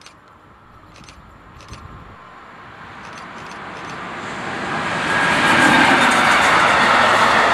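Container freight train hauled by an electric locomotive approaching and passing close by, its rumble of wheels on rails swelling steadily and loud from about five seconds in as the wagons go past.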